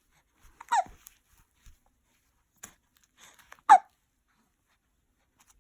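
Two hiccups about three seconds apart, each short and falling in pitch. The second is the louder.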